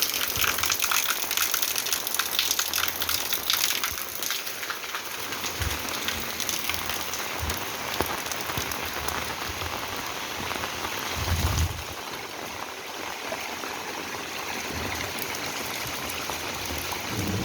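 Rain falling steadily, a dense patter of drops hitting surfaces. A brief low rumble comes about eleven seconds in, and the rain sounds slightly softer after it.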